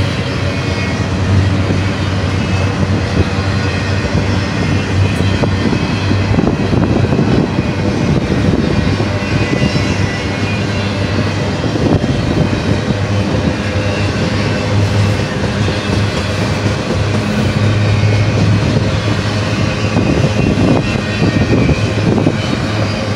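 Double-stack container well cars of a freight train rolling past close by: a steady, loud rumble of steel wheels on rail, with scattered clanks as trucks and couplers pass.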